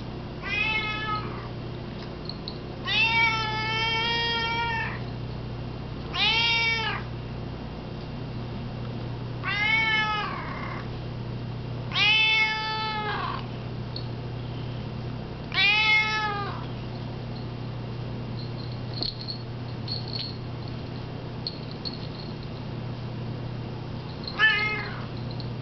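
Domestic cat meowing seven times at intervals of a few seconds, each call rising then falling in pitch. One call, about three seconds in, lasts about two seconds. After a long pause, a short final meow comes near the end.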